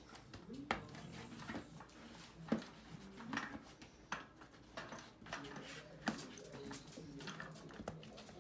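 Fat-bike tire being worked onto its rim by hand: the rubber bead and wheel rub and shift, with scattered sharp clicks and knocks, the loudest about two and a half seconds in.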